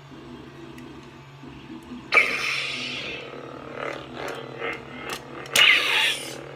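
Custom lightsaber's sound board playing through its new bass speaker: a steady low blade hum, broken by a sudden loud crackling clash effect about two seconds in and another near the end, with smaller swing sounds between them.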